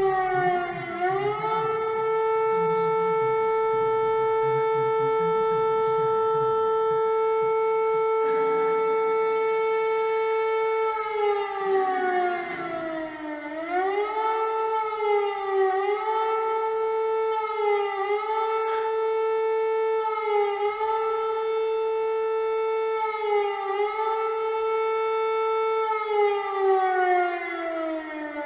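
Civil defense warning siren sounding a loud, steady tone. About twelve seconds in its pitch slides down and climbs back, then it wavers with short dips every couple of seconds before sliding down in pitch near the end.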